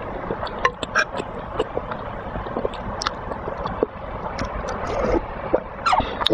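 Close-miked eating sounds: wet chewing and slurping of cheese balls in broth, with many small sharp clicks and smacks over a steady hiss.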